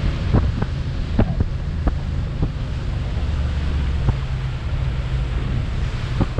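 Wind buffeting the microphone over the steady low drone of a small fishing boat's engine under way, with a few scattered knocks.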